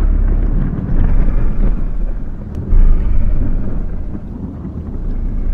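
Thunder rumbling low and loud right after a lightning flash, swelling about a second in and again near the middle.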